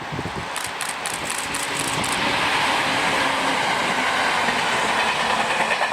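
Four-car electric local train, a two-car 701 series coupled to a two-car E721 series, running past on the line, its wheels clattering over the rails. It grows louder over the first couple of seconds, then holds steady, with a quick run of sharp high clicks near the start.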